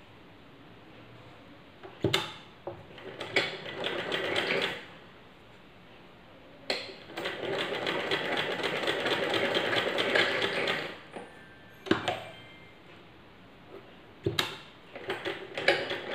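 Ganesh sewing machine stitching through cotton cloth in three runs of rapid needle strokes, the longest about four seconds in the middle. Sharp single clicks come between the runs.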